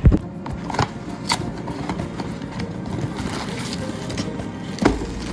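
Kitchen clatter: a few sharp knocks, the loudest right at the start and another near the end, over a steady background noise.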